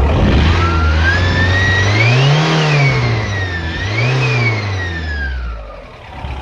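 TDI diesel engine revved twice, the engine note and a high whine rising and falling together with each rev; the owner wonders whether the whine is the turbo.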